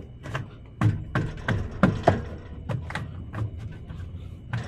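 A quick, irregular series of knocks and thumps, about ten in under five seconds, loudest around the middle, at a semi truck's open cab door.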